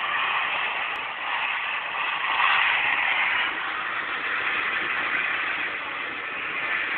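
Monster truck engines running and revving, played from a video through a laptop's small speakers. It is a steady noisy sound that swells about two and a half seconds in.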